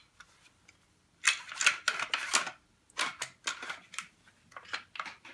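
Parts of a Benelli Nova pump shotgun being slid and fitted into the receiver by hand during reassembly: a stretch of rattling and scraping about a second in, then a series of separate sharp clicks.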